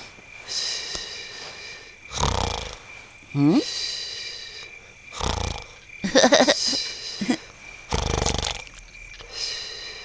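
Cartoon snoring: a deep rasping snore about every three seconds, with a rising whistle after one of them, over a steady chirring of night insects.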